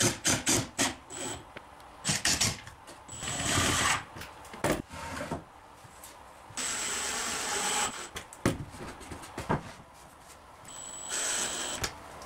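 Workshop tool work: a small power tool runs in three short bursts of about a second each, with clicks and knocks of handling between them.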